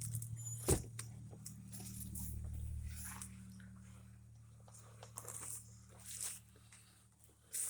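Footsteps crunching irregularly on debris over a low steady rumble that swells about two to three seconds in.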